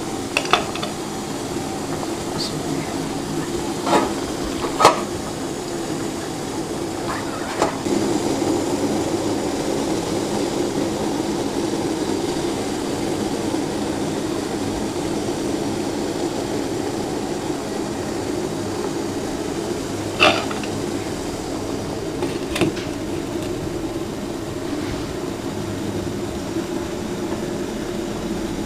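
Steady rushing of a stainless-steel steamer pot heating on a gas burner, with a few short metal clinks as leaf-wrapped parcels are set on the steamer tray and the lid goes back on.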